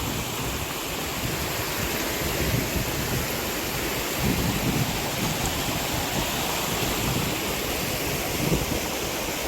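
Steady rush of water pouring over a small travertine cascade on a creek, with low wind rumble on the microphone.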